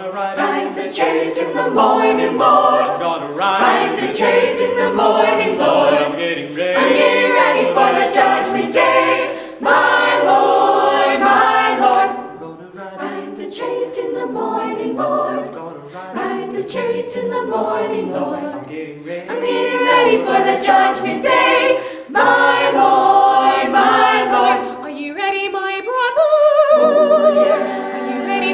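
Mixed choir of young men and women singing a hymn a cappella, in phrases with short pauses between them.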